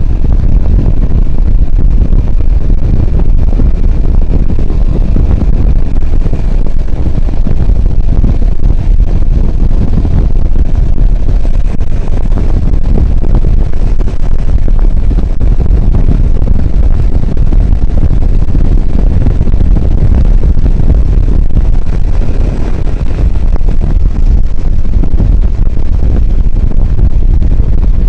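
Heavy, low wind buffeting on the microphone of a motorcycle riding at cruising speed, with the IZh Jupiter 5's two-stroke twin engine running steadily under it.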